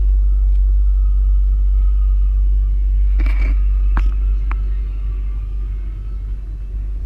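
Station platform ambience beside a standing regional train: a strong, steady low rumble with a faint steady whine above it, easing off in the second half. A brief rustle and a few sharp knocks come about three to four and a half seconds in.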